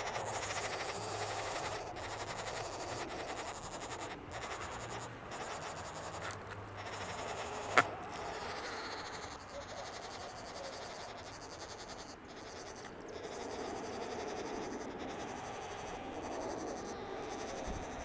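Woodpecker nestlings begging from inside the tree cavity, a continuous buzzy chorus. A single sharp knock about eight seconds in.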